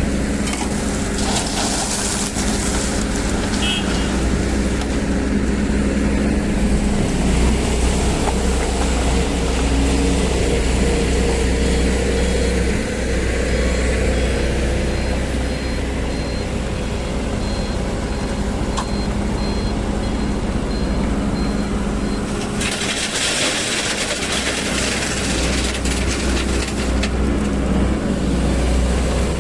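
Sany SY215C hydraulic excavator's diesel engine running steadily with a deep drone while working, with rushes of hissing noise about a second in and again from about two-thirds through.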